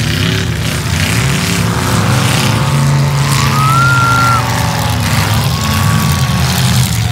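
Several demolition derby cars' engines running together, loud and steady, with pitches rising and falling as the drivers rev and manoeuvre.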